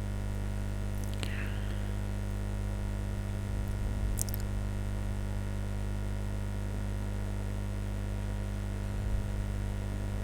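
Steady low electrical mains hum, with a couple of faint brief clicks.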